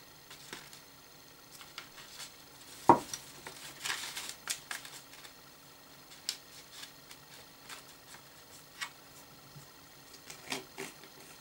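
Small tabletop handling sounds as a brush dabs dip onto bait in a plastic bowl: scattered light clicks, taps and scrapes. One sharp knock about three seconds in is the loudest sound.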